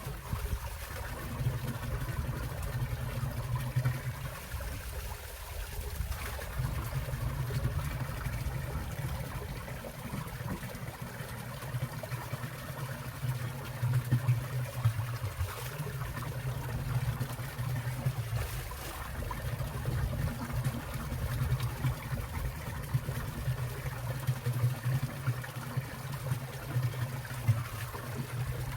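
Winter mountain stream water trickling and splashing steadily, with a low rumble underneath.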